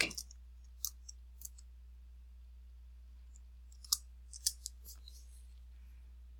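A few sharp, scattered clicks of computer keys as login details are entered, in two short groups about a second in and about four seconds in, over a steady low electrical hum.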